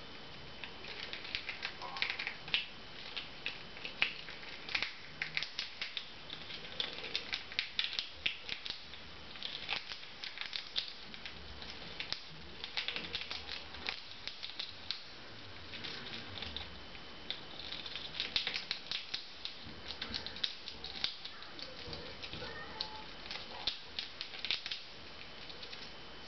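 A chipmunk gnawing and crunching food held in its paws: rapid, irregular crisp clicks in bursts.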